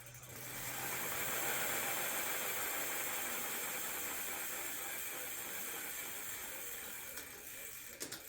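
E-bike drivetrain spun by hand: the chain and rear wheel whir as a steady hiss, which builds within the first second and tapers off near the end.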